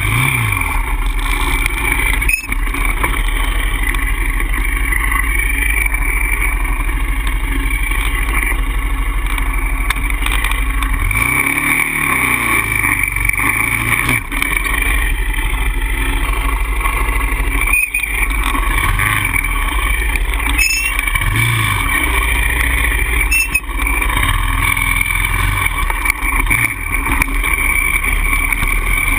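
Polaris Outlaw 525 quad's single-cylinder engine running steadily under load, the revs rising and falling briefly a few times, most clearly about twelve seconds in. A few sharp knocks cut through now and then.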